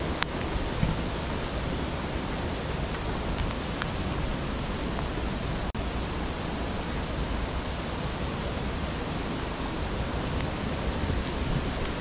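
Mountain stream water running, a steady, even rushing sound, broken by a momentary gap near the middle.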